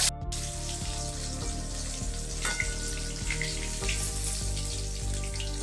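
Pieces of katla fish frying in hot mustard oil in a kadai: a steady sizzle with small crackles now and then.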